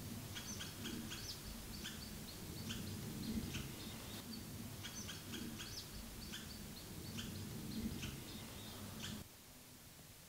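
Small birds chirping again and again in short calls over a low, steady background rumble. About nine seconds in, the chirping stops and only faint room tone remains.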